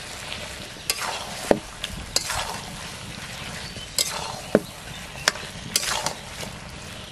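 Metal spatula scraping and knocking around a metal karahi as chicken pieces and tomatoes are stirred and fried, over a steady frying sizzle. Sharp metal-on-metal clinks come about every second, two of them ringing briefly.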